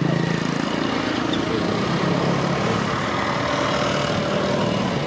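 Steady motor-vehicle noise, with a low engine hum that fades out about half a second in.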